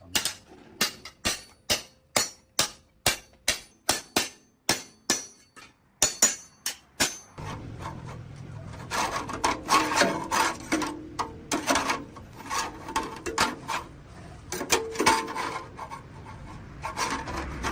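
Steady hammering, about two to three sharp blows a second, for roughly the first seven seconds. It then gives way to a continuous rasping scrape with uneven strokes, as of filing or rubbing down a part.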